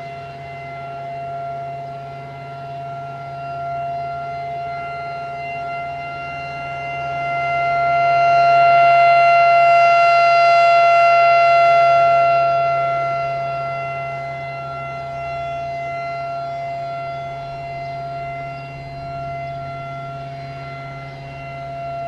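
Federal Signal Thunderbolt 1000B rotating outdoor warning siren sounding a steady full-alert tone, getting louder as the turning horn sweeps toward the listener about a third of the way in and fading again as it turns away. It runs without its blower, which the uploader thinks is locked up.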